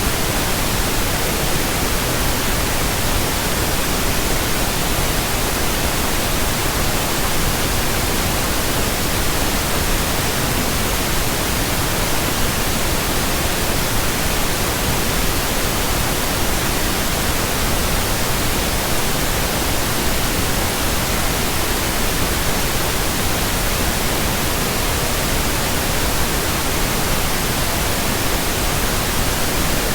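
Steady generated pink noise: an even, unchanging hiss across all pitches.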